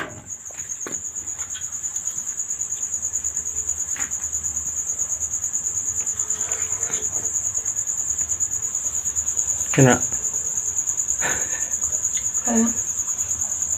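Crickets chirping: a steady, fast-pulsing high trill.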